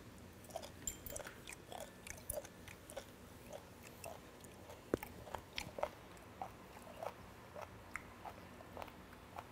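A man chewing fermented skate nose (hongeo-ko): a run of soft mouth clicks and small crunches, about two to three a second, from the firm, slightly crunchy flesh, with one sharper click about five seconds in.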